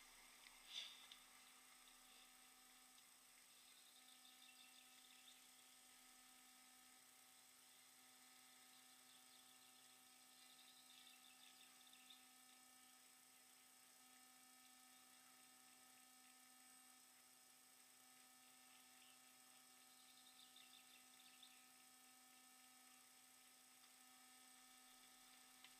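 Near silence with a faint, steady electrical hum made of several constant tones, and one faint tap about a second in.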